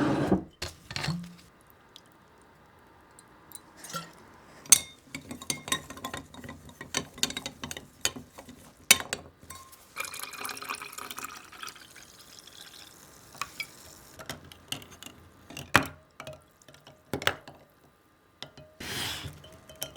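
Clear ice cubes clinking irregularly against a glass as a whisky highball is stirred, with brief stretches of liquid pouring a little past halfway and again near the end.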